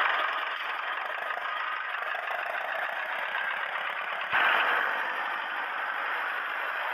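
Small motor of a toy construction vehicle running with a steady buzz. It gets louder after a cut about four seconds in.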